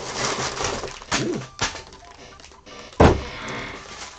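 A cardboard kit box and plastic bags of building bricks being handled: rustling with a few sharp knocks, then a loud thunk about three seconds in.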